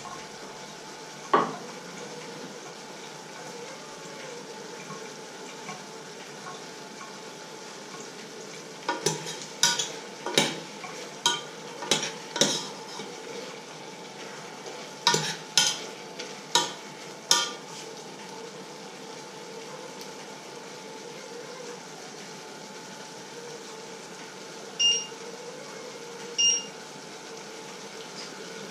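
Metal spoon clanking against a stainless steel saucepan while stirring: a single clink about a second in, then two quick runs of sharp clinks, and two clear ringing clinks near the end.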